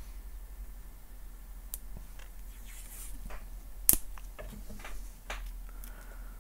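Small clicks, taps and light rustles of tools and parts being handled at a phone repair bench, with one sharp, loud click about four seconds in.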